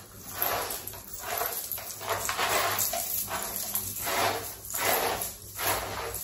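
Hiccups: a short, breathy catch repeating quickly, about once or twice a second.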